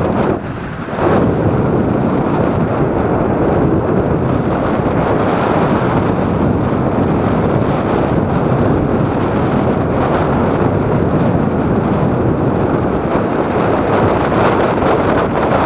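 Steady wind buffeting on the microphone of a camera on a moving electric mountain bike, mixed with tyre noise on a sandy, stony dirt road. It drops briefly about half a second in.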